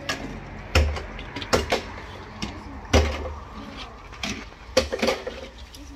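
Small die-cast toy cars set down and knocked against a plastic folding tabletop: a run of irregular sharp clacks, about six loud ones and a few softer.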